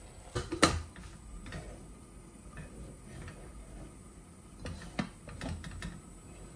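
Light knocks and clinks of cookware as the wooden spatula is taken out of a stainless steel cooking pot and a glass lid is set on it. The sharpest knock comes about half a second in, with a few scattered clicks and a short cluster of them around five seconds.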